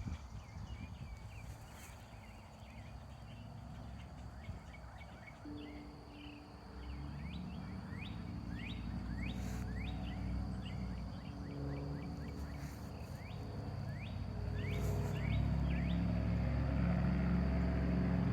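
Outdoor farm ambience: many short, falling chirp calls from birds, with a low engine hum that starts about five seconds in and grows steadily louder toward the end. A thin, steady high tone runs underneath.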